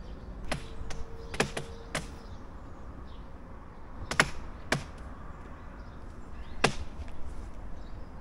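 Sharp, irregular cracks of wood fibres snapping inside a partly cut tree that is still settling under tension, about eight cracks with the loudest about four seconds in, and a faint creak during the first two seconds.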